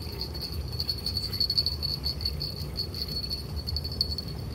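Insects chirring in a steady, finely pulsing chorus, with a low rumble underneath.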